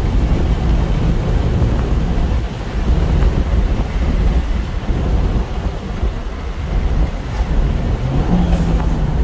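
Dodge Dart driving at road speed: steady wind buffeting on the microphone over rumbling tyre and road noise from its Kumho Ecsta PS31 summer tires. A low engine hum comes through near the end.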